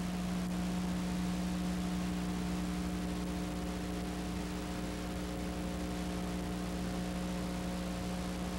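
A steady hum of a few fixed tones over an even hiss, with no other sound: the background noise of a silent home-movie film's transfer.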